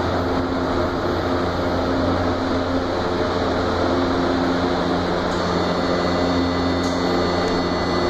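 Steady hum of a Frota J metro train standing at an underground platform with its doors open, its onboard equipment and the station ventilation running. A faint high whine joins about five seconds in.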